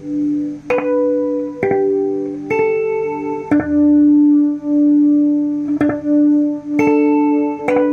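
Electric guitar notes plucked one at a time through a Toa EMX-10 echo mixer set to full echo. There are about seven notes, each followed by a train of echo repeats that overlap into a sustained, pulsing wash.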